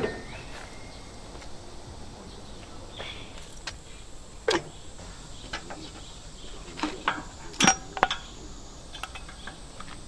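A few scattered sharp clicks and knocks, the loudest pair about three quarters of the way through, from hands handling small metal and nylon parts of a baler, over a faint steady hiss.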